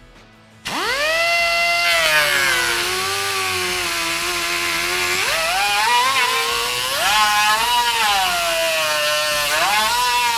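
Pneumatic cut-off wheel starting abruptly and cutting through the chrome grille: a high whine that drops in pitch as the wheel bites, then rises and falls repeatedly as the load changes, winding down near the end.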